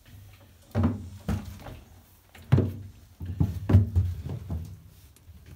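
A person stepping onto and shifting weight on an acrylic shower tray: a few dull, irregular thuds and knocks, closer together in the second half, as a silicone-repaired floor crack is loaded to check whether it separates.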